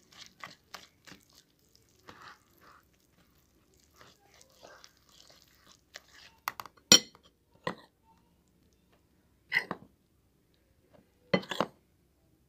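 Wire whisk stirring flour into wet dough in a bowl: soft scraping with scattered light clicks, and a few sharper clinks of the whisk against the bowl in the second half.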